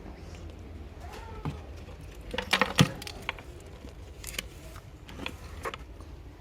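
A brief clatter of small hard clicks and clinks about two and a half seconds in, followed by a few single clicks, over a low steady hum.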